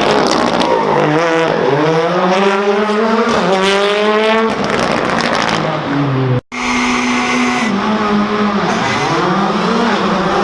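Rally car engines at high revs, the pitch climbing through the gears and then dropping as the car slows. Sudden break about six and a half seconds in, followed by another car's engine holding steady, then dipping and rising again.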